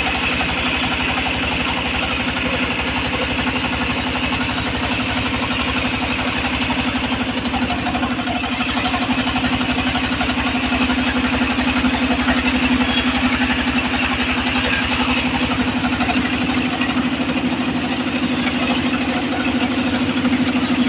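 Engine powering a homemade circular sawmill running steadily at an even idle, with rapid regular firing pulses and no clear cut into the wood.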